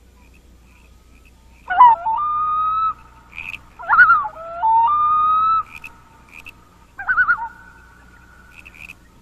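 Three loon-like cries, each opening with a quick quavering warble and then holding a long steady note for about a second. The last one is shorter. Short high frog peeps repeat in the gaps between them.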